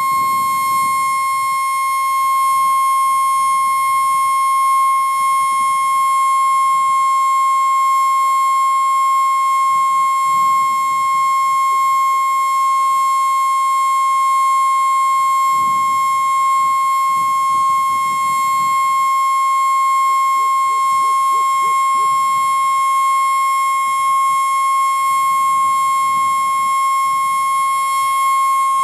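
Edwards Model F electric siren, freshly restored, running at full speed: a loud, steady high-pitched scream held at one unchanging pitch.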